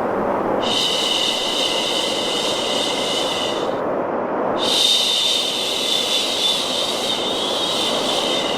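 A woman shushing a baby with long, drawn-out "shhh"s over a steady rushing white noise: one shush of about three seconds, a brief pause about four seconds in, then a second, longer shush.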